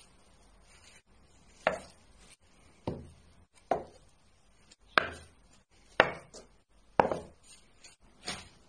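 A run of about seven sharp knocks, roughly a second apart, each with a short ringing tail.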